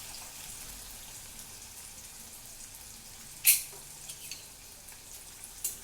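Garlic sizzling in hot oil in an iron kadhai, a steady frying hiss. About halfway through there is one sharp knock, the loudest sound, with a few fainter ticks near the end.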